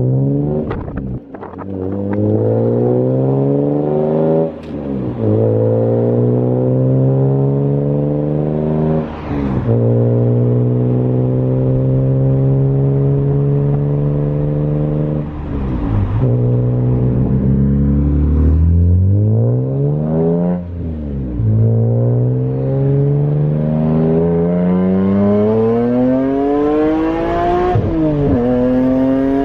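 BMW E46 M3's S54 naturally aspirated straight-six engine and loud exhaust under hard acceleration, its pitch climbing through the revs and falling sharply at each of about six gear changes or throttle lifts, heard from inside the car.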